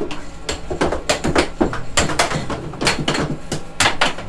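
Air hockey puck clacking off the plastic mallets and the table's rails during a fast rally: a rapid, irregular run of sharp clacks, several a second.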